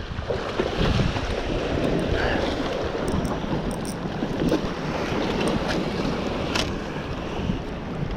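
Strong wind buffeting the microphone over the steady wash of surf, with a few faint high clicks.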